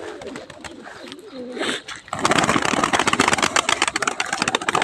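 Domestic pigeons cooing softly. About two seconds in, a loud rush of rapid wingbeats starts and keeps going as a group of the pigeons takes off from the ground.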